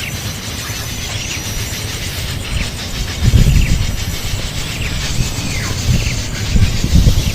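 Short downward-sweeping bird calls repeating every second or so over a steady low rumbling noise, which swells louder about three seconds in and again near the end.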